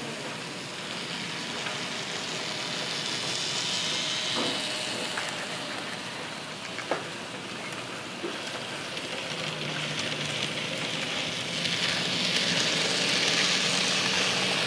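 N scale model freight trains rolling on the layout's track: a steady hiss and rattle of small wheels on rail that grows louder in the last few seconds as a train passes close. A single sharp click about seven seconds in.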